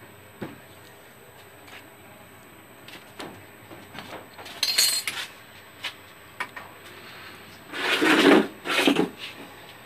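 A thin pry tool scraping along the edge of a Samsung Galaxy J7 Prime, between the display and the frame, cutting through the screen adhesive. Scattered small clicks come first, then a rasping scrape about halfway through and two louder scrapes near the end.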